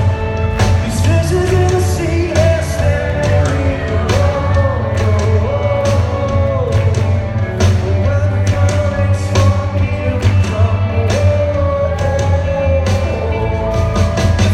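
A male singer sings a rock song live, backed by a band with a steady bass line and regular drum hits.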